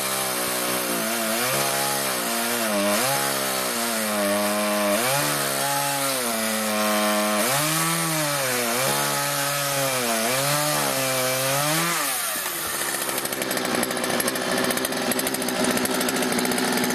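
McCulloch M3816 38cc two-stroke chainsaw cutting wood, its engine note repeatedly dipping and rising as the chain bogs down in the cut and recovers. After about twelve seconds the wavering gives way to a rougher, steadier running.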